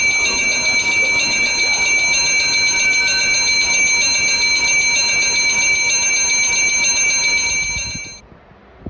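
Wall-mounted station warning bell ringing loudly and continuously with a fast, even trill, then cutting off suddenly about eight seconds in.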